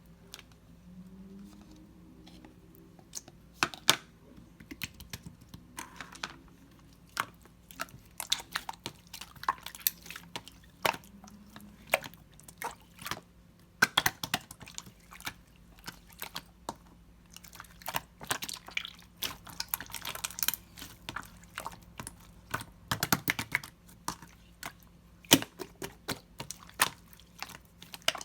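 Clear slime marbled with pink, worked by hand, making irregular sticky clicks and pops. There are few at first, and they come thick and fast from about three seconds in.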